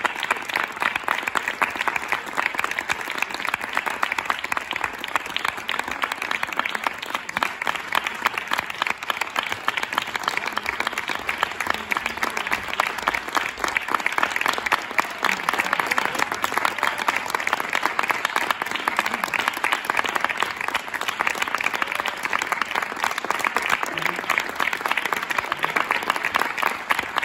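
Theatre audience applauding, many hands clapping in a dense, steady patter.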